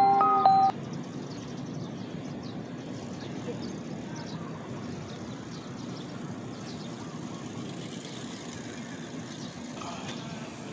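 A short chiming mallet-percussion tune cuts off suddenly within the first second, leaving steady outdoor background noise for the rest.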